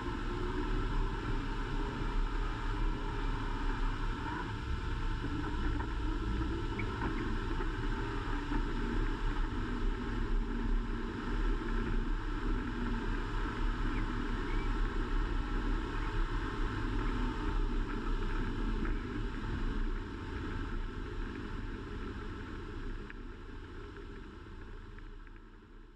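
Vintage Dodge Power Wagon running on a trail, a steady low engine-and-drivetrain rumble that fades away over the last several seconds.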